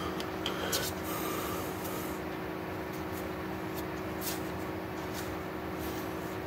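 Steady electrical hum and hiss of room tone picked up by a webcam microphone, with a few short clicks and rustles in the first second as hands move at the face and clothing.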